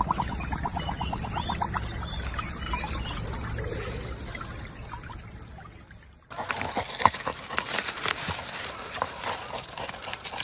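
Water splashing and trickling as a husky lies in a shallow muddy pool, over a steady low rumble. About six seconds in, this gives way to the scratchy crackle of a dog nosing and digging into dry, crumbly soil.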